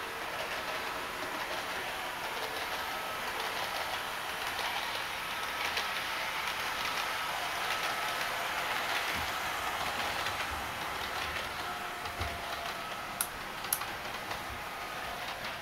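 HO-gauge model electric train running on its track: steady rolling noise with a whine from its motor, driven by a microcomputer PWM controller that makes the motor itself reproduce a real train's drive sound. Two sharp clicks near the end.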